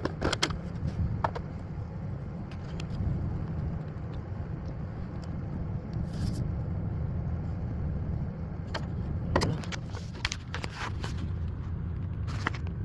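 DeWalt DCC020IB 20V cordless air compressor running steadily as it inflates a trailer tire, with scattered clicks from handling and a short hiss of air about six seconds in.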